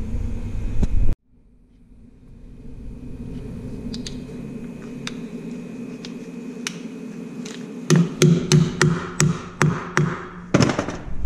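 Clip-on wheel balance weight being hammered onto the flange of a steel rim with a wheel-weight hammer: a few light taps, then a run of about ten sharp metallic strikes, roughly four a second, near the end. A low rumble cuts off abruptly about a second in.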